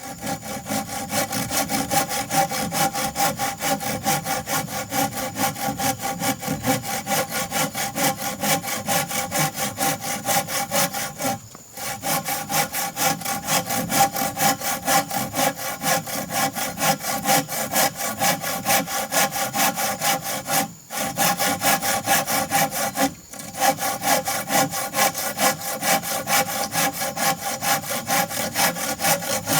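Hand saw cutting through wood in fast, even back-and-forth strokes, with three short pauses.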